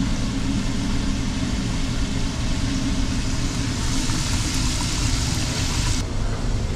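Steady low mechanical rumble. A hiss swells about four seconds in and cuts off suddenly about two seconds later.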